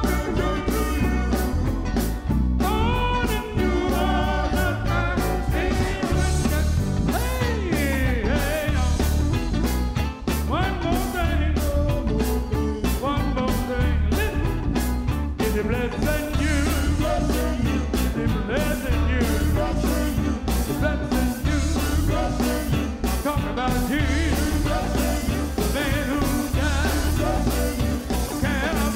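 Male gospel vocal group singing live, a lead voice over group harmonies, with electric guitar and a steady beat.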